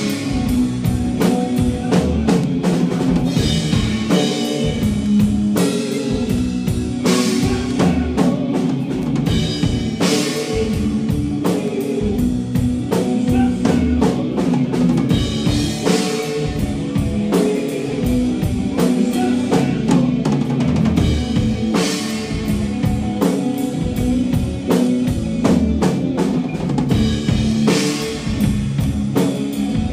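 Live rock band playing loud and full: a drum kit keeping a steady beat, with electric bass and electric guitar.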